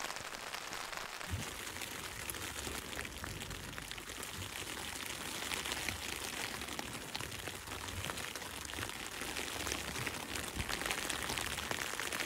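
Light rain falling on a tent, heard from inside: a steady patter of many small drops on the fabric, with a faint low rumble underneath.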